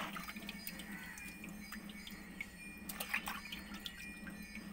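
Light splashing and dripping of water as cut fish pieces are rubbed and rinsed by hand in a plastic basin, in scattered short splashes.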